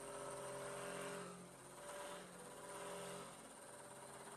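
Faint whir of a 5-axis CNC wood machining centre running, with a few steady hum tones that swell and shift in pitch every second or so.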